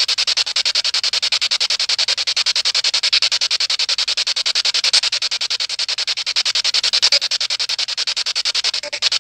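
Radio static chopped into rapid, even pulses, about ten a second: a spirit box sweeping through radio stations, with no clear voice in the noise.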